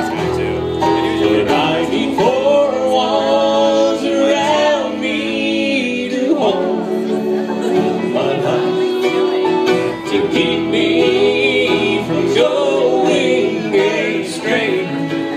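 Bluegrass band playing live on fiddle, upright bass, acoustic guitar, mandolin and banjo, with several voices singing together over the instruments.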